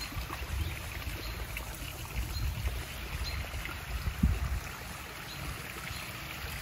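Backyard koi pond waterfall splashing steadily into the pond, with a low uneven rumble and one short bump on the microphone a little after four seconds.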